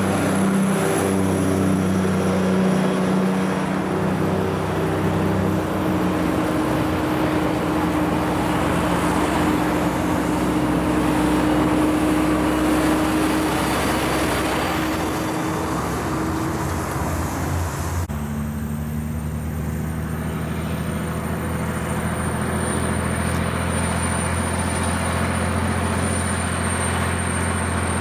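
Heavy diesel trucks pulling uphill past the roadside, one after another: a steady engine drone mixed with tyre and road noise. The sound changes abruptly about eighteen seconds in as a different truck takes over.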